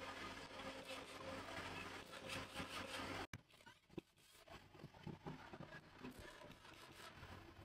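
Faint workshop noise: a steady machine hum with light rattling, which cuts off suddenly about three seconds in, followed by scattered light knocks and clicks.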